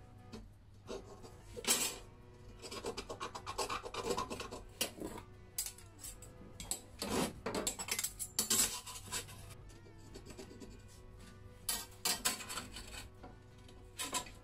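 Steel scriber scratching marking lines into a 4 mm steel sheet, in short scratchy strokes that come in clusters with pauses between them.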